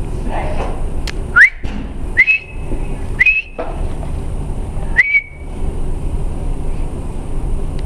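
A person whistling four short rising whistles, each sweeping up and then holding briefly, over a steady background hum.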